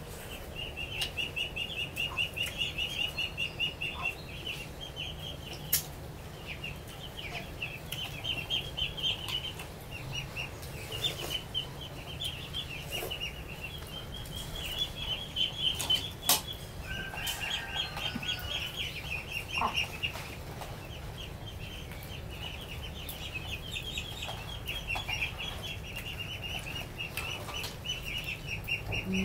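A high-pitched, rapidly pulsing chirring from animals calls in long phrases with short breaks. There are a couple of sharp clicks, one about six seconds in and one about sixteen seconds in.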